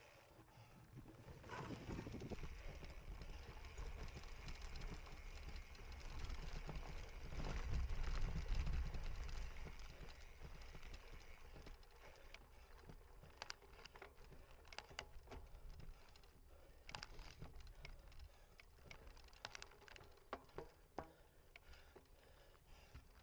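Cyclocross bicycle ridden over rough ground: a low rumble of wind and tyres builds and peaks about eight seconds in, then gives way to a run of sharp rattles and clicks.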